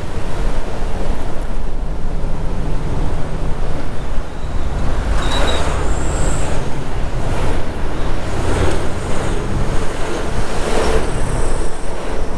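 Moving bus heard from its roof: a steady low engine and road rumble under wind rushing over the microphone, with several louder rushes in the second half and a brief high whine about five seconds in.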